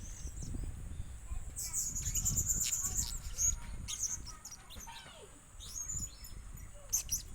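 Blue-crowned hanging parrot (serindit) giving a string of short, high-pitched chirps, with a quick trill about two seconds in.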